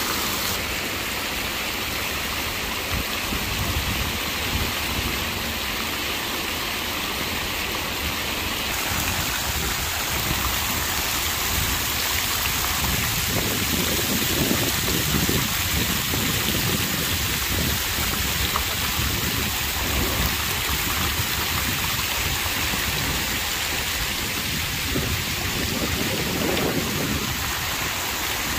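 Fountain jets splashing steadily into a shallow pool, an even hiss of falling water.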